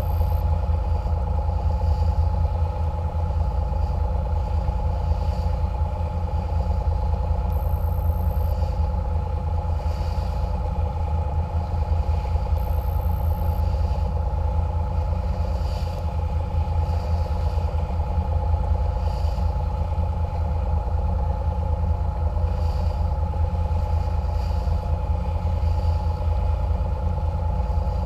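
Catamaran cruiser's engines running steadily under way: a low drone with a steady mid-pitched hum over it, and faint light knocks every couple of seconds.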